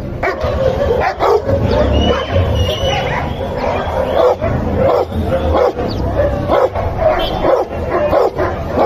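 Dogs barking and yipping over and over, with a few high whines in between.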